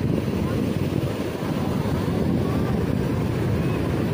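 Wind buffeting the microphone over the wash of surf: a steady, low, rumbling noise.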